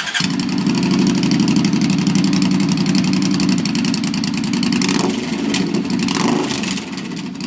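Suzuki Boulevard C50T's V-twin engine running through a 2.5-inch Road Burner aftermarket exhaust, a loud, steady, deep pulsing exhaust note that eases slightly about five seconds in.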